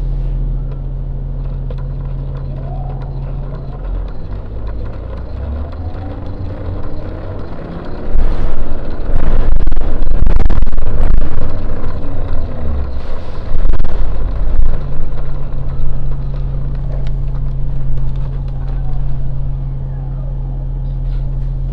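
Interior of an Orion VII NG city bus: a steady low drivetrain hum. A few seconds in, the bus pulls away, with rising whines and rattles swelling into a loud stretch in the middle, before settling back to a steady hum near the end.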